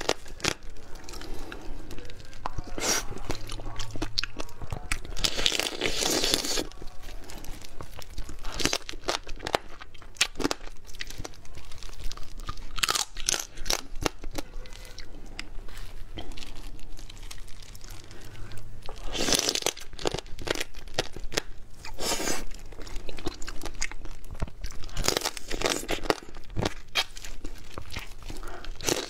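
Close-miked crunching and chewing of crab in spicy sauce, in irregular bursts of crunches with chewing between.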